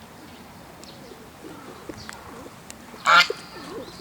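Chinese goose giving one short, loud, harsh honk about three seconds in.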